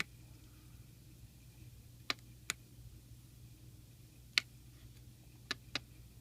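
Small tactile pushbuttons on an Arduino LCD keypad shield clicking as they are pressed, about six short sharp clicks at uneven intervals, two of them in quick pairs. A faint steady low hum runs underneath.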